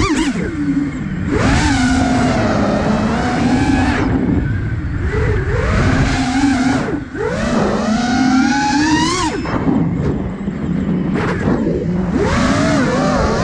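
iFlight Nazgul Evoque F5 5-inch FPV quadcopter's brushless motors and propellers whining in flight. The pitch swoops up and down with each throttle punch and chop, and it drops off briefly twice where the throttle is cut.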